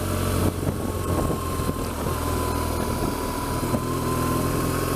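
BMW R1200GS boxer-twin engine running steadily at low town speed, heard from on the motorcycle, with a thin steady whine alongside from about a second in.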